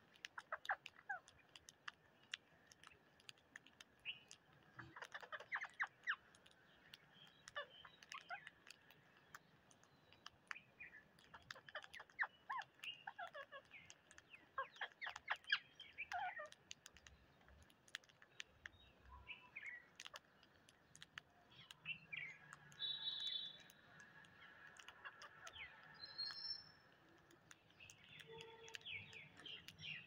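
Rose-ringed parakeets feeding on rice grains on concrete: many sharp clicks from their beaks pecking the hard surface, with short falling chirps from the flock now and then.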